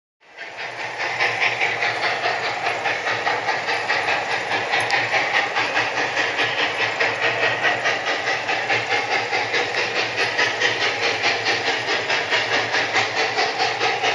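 Steam locomotive sound: a steady, rapid chuffing exhaust beat, about four chuffs a second, over hissing steam. It starts suddenly just after the start and comes up to full level within about a second.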